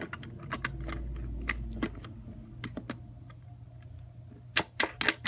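Plastic Lego bricks clicking and knocking as a small Lego combination safe is turned and handled, with a cluster of louder clicks near the end.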